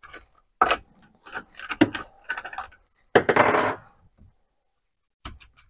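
Metal clinks and knocks of hands working at a chainsaw's clutch side cover and bar nuts to take the bar off, with a short rattling clatter about three seconds in and a few light ticks near the end.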